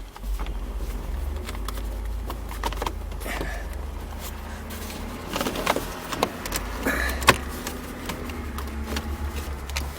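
Plastic lower steering-column cover being worked loose and pulled off: scattered plastic clicks and rattles, with a sharp snap about seven seconds in, over a low steady rumble.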